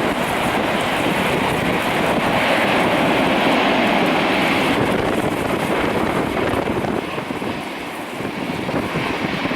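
Airbus A340-300's four CFM56 jet engines giving a steady rush of jet noise as the airliner lands. The noise eases somewhat about seven seconds in, then swells briefly near the end.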